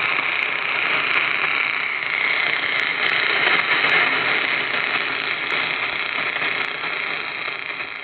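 Kenwood TS-590 HF transceiver in LSB on the 40-metre band, receiving an open channel with no signal: steady receiver hiss and band static. It fades away near the end.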